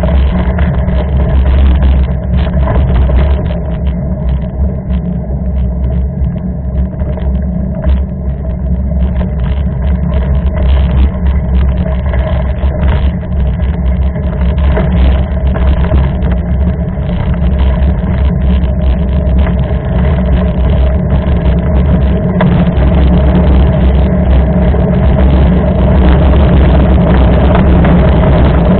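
Mountain bike riding a trail: a steady, loud low rumble of wind and tyre noise, with frequent small knocks and rattles from the bike over rough ground.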